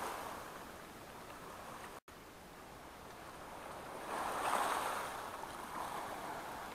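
Small waves washing over a pebble beach, swelling about four seconds in and then easing. The sound cuts out for an instant about two seconds in.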